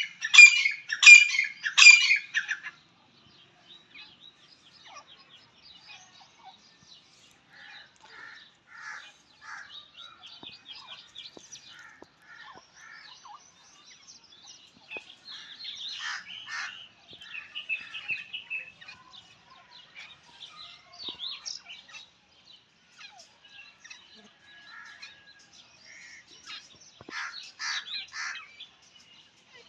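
Female grey francolin calling: a run of loud, evenly repeated calls in the first two seconds or so, then quieter scattered calls and chirps, with louder bursts around the middle and again near the end.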